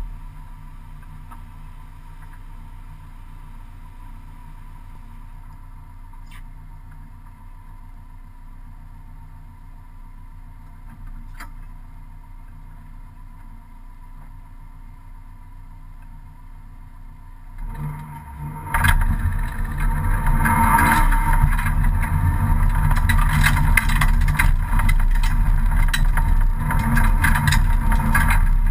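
Rally car's engine idling steadily, heard from inside the caged cabin. About eighteen seconds in, it suddenly gets much louder as the car pulls away and the engine runs hard, with heavy road noise and clatter through the shell.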